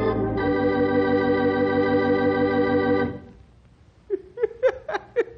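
An organ holds a sustained chord with a slight wavering vibrato, the music cue cutting off about three seconds in. A voice starts near the end.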